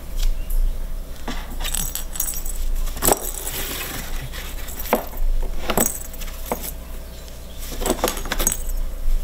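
Cats batting the play ball inside a cardboard scratcher toy: irregular knocks and clinking rattles, about eight or nine sharp hits spaced unevenly.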